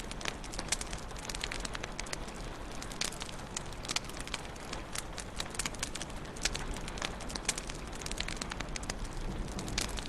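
Wood fire burning in a fireplace: a steady soft hiss with frequent sharp, irregular crackles and pops.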